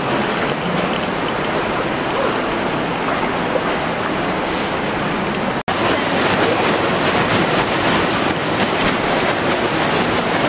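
Steady rush of a mountain stream through a narrow rock canyon, with splashing from people wading in it. A brief cut about halfway through, after which the water is a little louder and hissier, the churning of a small cascade into a pool.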